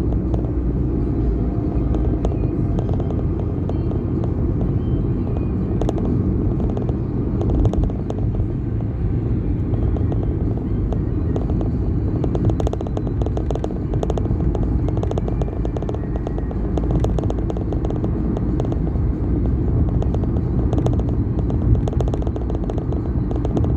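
Road traffic: the steady rumble of motor vehicles and motorcycles running, with scattered light ticks and rattles over it.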